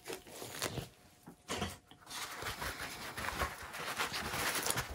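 Irregular rustling and light knocks of hands handling things at a work table, with a short lull about a second in.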